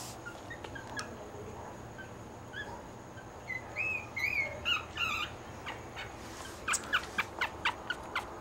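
Young puppy squeaking and whimpering in thin, high-pitched cries. There are a few faint squeaks early, rising-and-falling squeals around the middle, and a quick run of short squeaks near the end.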